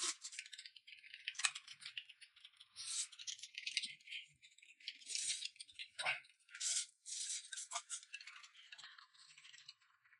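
Noodles being slurped and eaten, in repeated hissy bursts about a second long, with light clicks in between.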